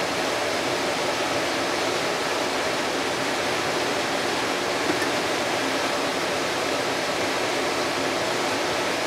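Steady, even hiss of background noise at a constant level, with a faint click about five seconds in.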